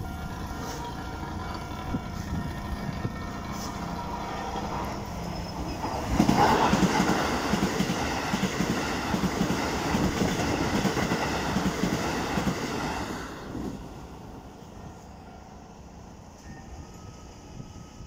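Level crossing alarm ringing steadily. About six seconds in, a Keikyu New 1000 series electric train passes close by and gets much louder, its wheels clattering over the rail joints in an even rhythm for about seven seconds. The train noise falls away sharply near 14 seconds, leaving the alarm fainter.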